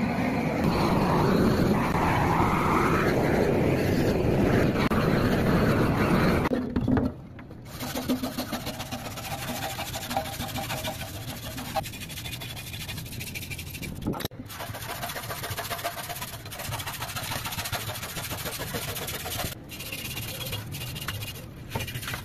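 A loud steady rushing noise for about the first seven seconds, then the quieter, rapid rasping strokes of a hand scraper stripping paint from a steel motorcycle fuel tank.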